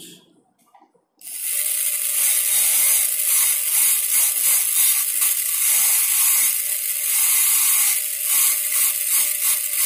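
High-speed dental air-turbine handpiece starting about a second in and running steadily with a loud high hiss and a faint steady whine. Its bur is grinding a typodont premolar, joining the depth orientation grooves on the labial surface for a crown preparation.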